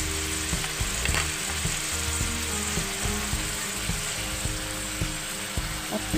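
Chicken gizzards with onion and bay leaves sizzling as they sauté in oil in an aluminium wok: a steady frying hiss, with a faint click about a second in.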